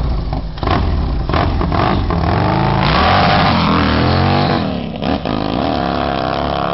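Harley-Davidson race bike's big V-twin engine being revved: short throttle blips at first, then longer revs that rise and fall in pitch, loudest about three to four seconds in.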